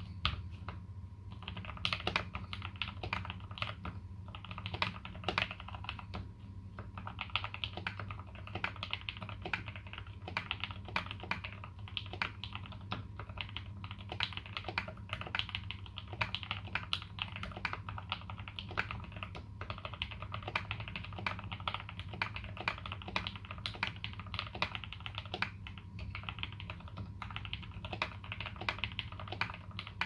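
Fast continuous typing on a KBD75v2 custom 75% mechanical keyboard with fully modded Zealios v2 tactile switches and GMK Dolch keycaps: a dense stream of key clacks, with a few short pauses in the first several seconds.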